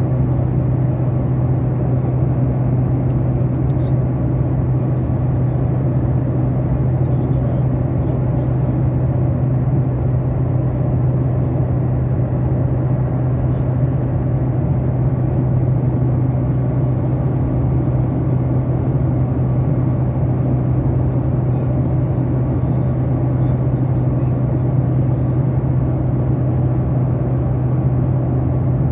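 Steady drone inside an airliner cabin: engine and airflow noise with a strong, unchanging low hum.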